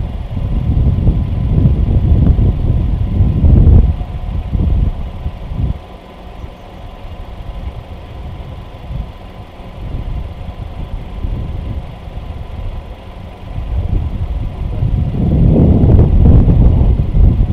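Wind buffeting the microphone: a low, gusty rumble, strong at first, easing off in the middle and swelling again near the end.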